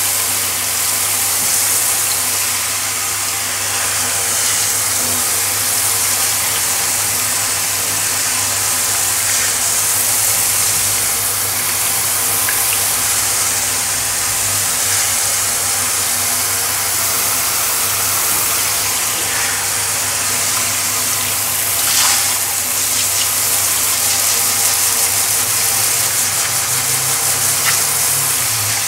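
Water spraying steadily from a brush-type pet shower head onto a tiled floor, a constant hiss with a steady low hum underneath. A brief knock sounds about twenty-two seconds in.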